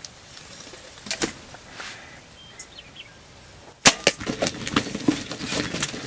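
A compound bow shot about four seconds in, a sudden sharp snap as the arrow is loosed and strikes a wild turkey tom, followed by the hit bird thrashing and beating its wings in dry corn stubble, a rapid irregular run of thumps and rustles.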